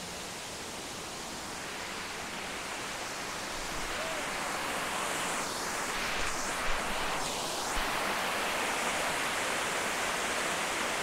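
Steady rush of a waterfall, growing gradually louder over the first several seconds.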